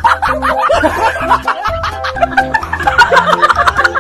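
Upbeat background music with a steady beat and a repeating bass line, with laughter over it.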